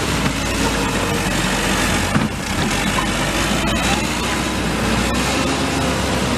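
Backhoe loader's diesel engine running steadily, with a brief knock about two seconds in.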